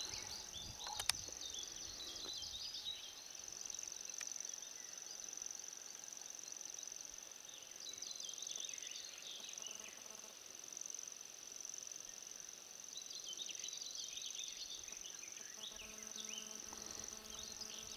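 Meadow insects keeping up a steady, high, continuous trill, with short bursts of high chirping three times and a faint click about a second in.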